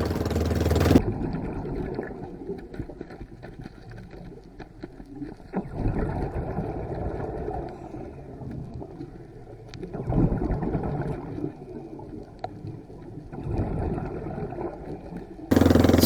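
A boat engine running steadily, cut off sharply about a second in, then muffled underwater sound with a few louder swells of noise; the engine sound returns abruptly shortly before the end.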